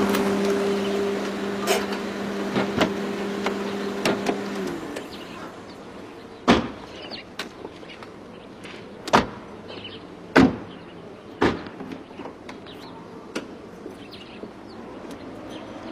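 A car's engine hums steadily and shuts off about five seconds in. Car doors then open and shut, making several sharp clunks, the loudest around the middle.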